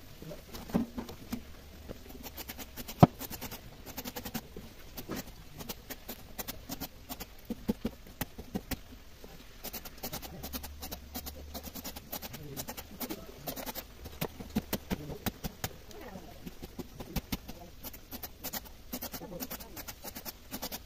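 Kukri knife chopping a thick, fleshy plant stalk into small pieces: a run of quick, sharp cuts and knocks, a few a second and unevenly spaced, as the blade goes through the stalk onto the wood beneath.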